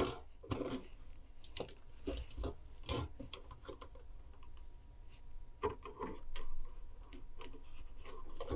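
Craft wire being handled and bent, with thin aluminium binding wire against thick coloured wire: irregular small clicks and rubbing as the wires touch and shift.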